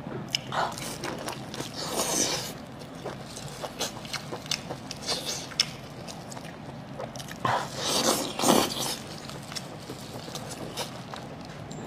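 Close-up wet chewing and smacking of a person eating braised lamb intestine, with small clicks and squelches and louder bursts about two seconds in and again around eight seconds in.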